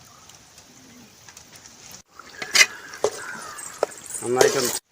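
A metal spoon knocks a couple of times against a pan of thickening halwa as it is stirred, followed by a brief voice near the end.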